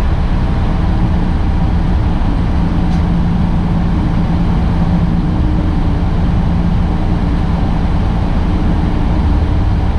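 Semi truck's engine and tyres droning steadily, heard from inside the cab at a steady highway cruise.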